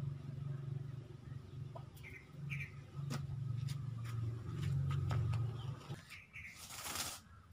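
Bird calls: low cooing with a couple of short chirps about two seconds in, a few light clicks, and a brief rustling scrape near the end.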